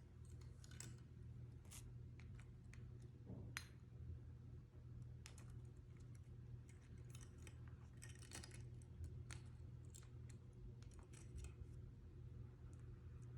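Near silence: faint, irregular small clicks and taps, a few a second at most, over a low steady hum.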